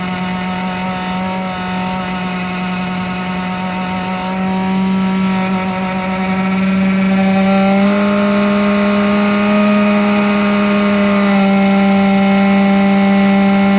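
Webasto parking heater running with a loud, steady hum on one fixed pitch plus overtones. The pitch steps up slightly about eight seconds in and shifts again a few seconds later. This is the strange noise the heater is making.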